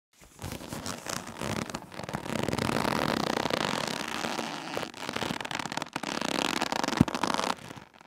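Rope being handled, rubbing with a dense crackling friction for about seven seconds. One sharp knock about seven seconds in is the loudest moment, and then it stops.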